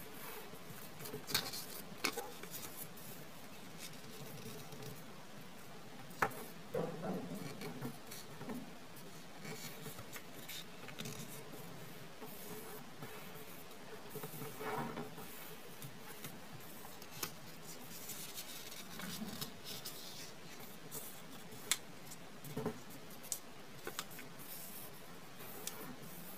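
Origami paper being folded and creased by hand, with soft rustles and scattered sharp crackles and taps.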